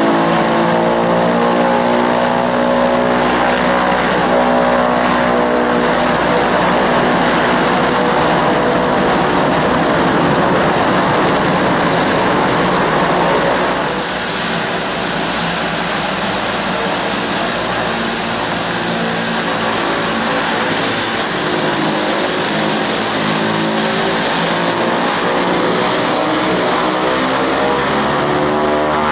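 Turboprop aircraft engines and propellers running loud and steady. About halfway through a high whine sets in and slowly rises in pitch.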